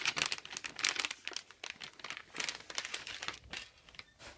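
Metallised anti-static bag crinkling in the hands as a new motherboard is drawn out of it, in irregular bursts that thin out near the end.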